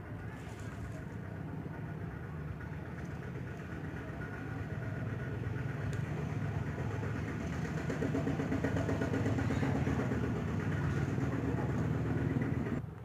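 A motor running steadily. Its hum grows louder over several seconds, then cuts off abruptly near the end.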